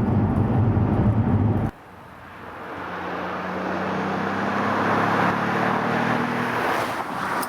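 In-car engine and road noise that cuts off abruptly under two seconds in, followed by an Alfa Romeo Brera 3.2 V6 approaching and driving past, its engine note steady and growing louder as it nears, then falling away near the end. The engine runs evenly, its ignition-coil misfire repaired.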